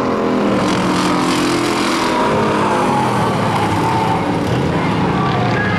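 Several stock-car engines running at race speed around a paved oval, their pitch shifting up and down as the cars pass through the turn.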